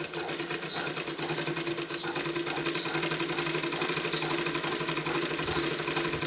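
Picot-edging (piku) sewing machine running slowly and evenly, stitching a picot edge in silk thread: a steady mechanical hum and stitching rattle. It is kept at low speed because the delicate silk thread breaks when the machine runs fast.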